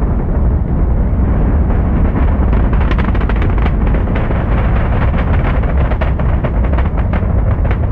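Saturn V rocket's engines during launch and ascent: a loud, steady, deep rumble with dense crackle throughout.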